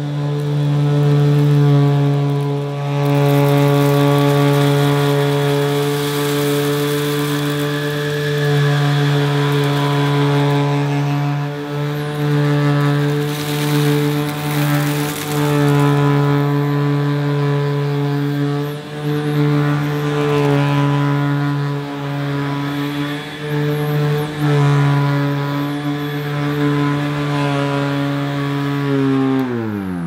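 Electrolux Electronic 506 upright vacuum cleaner running on carpet with its freshly fitted belt, a steady motor hum whose level rises and falls as it is pushed over the carpet. Near the end it is switched off and the motor winds down, its pitch falling away.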